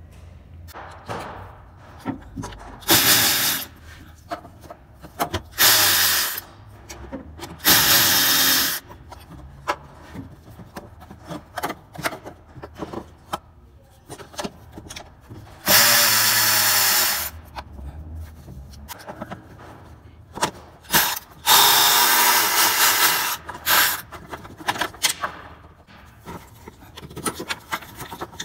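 Handheld power tool (drill/driver) run in several short bursts, about a second each, spinning out the bolts of the engine's timing-belt covers, with clicks and metal handling between the bursts.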